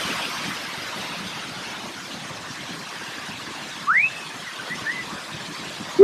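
Steady rush of falling water from a waterfall. About four seconds in there is one short rising whistled note, followed by a few faint short chirps.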